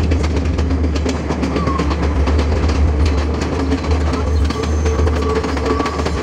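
Passenger train running through a brick-lined rail tunnel, heard from the carriage: a loud, steady low rumble with rapid clicking of the wheels over the rails.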